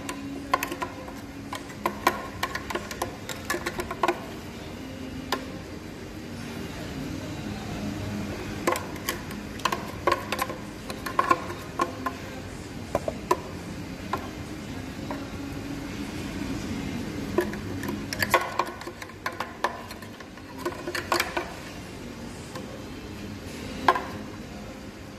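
A spoon scraping and tapping against a blender jug while scooping thick blended frappe into a plastic cup, heard as scattered clicks and knocks in several bunches.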